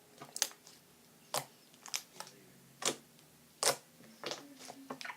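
Apricot scrub slime being kneaded by hand, giving sharp clicks and pops about once a second as air is squeezed out of it.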